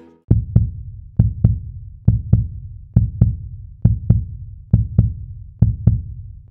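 A music track built on a heartbeat-like double thump: a pair of low beats repeating steadily, a little faster than once a second.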